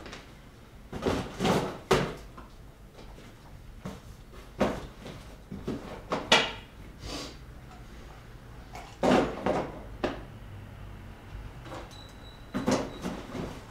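Office desk things being handled in a hurry: about ten irregular knocks and clatters of objects picked up and set down, the loudest about six seconds in.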